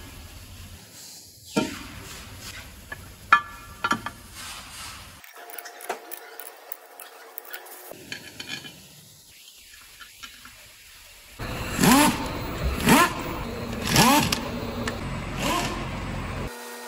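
Light clinks and knocks of metal parts being handled and fitted on a Scania DC16 V8 engine block. About eleven seconds in come four short bursts of a handheld power tool running bolts, each rising and falling in pitch.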